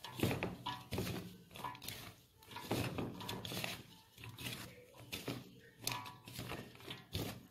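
A hand mixing raw banana peel strips into dry besan and rice flour in a stainless steel bowl: uneven rustling, scraping strokes, about one or two a second.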